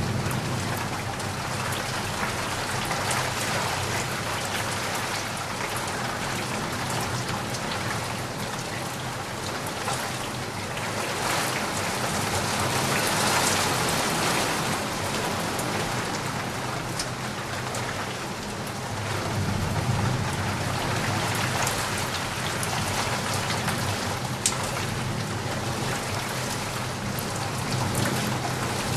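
Steady rain falling on a surface, with scattered individual drop ticks and a heavier spell about halfway through. Low rumbles of distant thunder die away at the start and come again about two-thirds of the way in.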